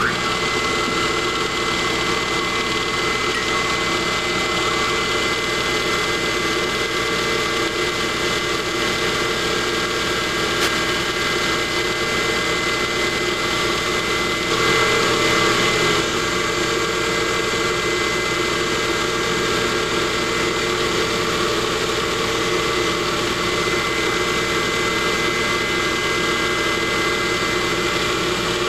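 Craftsman/Atlas 618 metal lathe running steadily, turning a test bar between centers as a shoulder is cut into it: a steady mechanical hum with a high whine. It gets briefly louder about halfway through.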